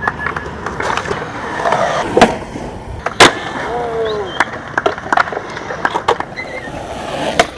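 Skateboard wheels rolling on concrete, with several sharp clacks of boards popping and landing. The loudest clack comes about three seconds in, another a little before it, and one near the end.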